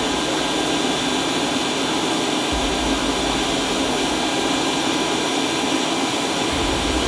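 AH-64 Apache helicopter's turbine running on the ground: a steady rushing noise with a thin, high whine held at a constant pitch.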